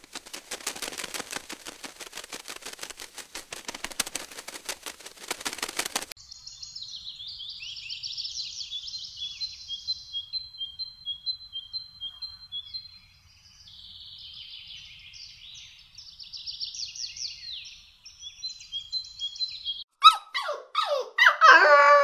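Fast, dense crackling clicks for about six seconds. Then a songbird sings a scratchy warble broken by short, high whistled notes repeated in runs. Near the end a dog gives loud yips and whimpers.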